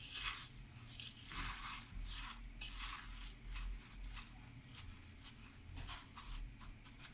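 Dry breadcrumbs crunching and rustling under the fingers as an egg-dipped bread sandwich is pressed and turned in them on a plate, in soft, irregular scratchy strokes over a faint low hum.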